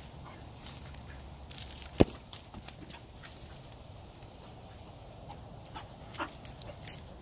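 A ball kicked across a lawn: one sharp thump about two seconds in. Then light scattered rustling and patter of dogs running on grass.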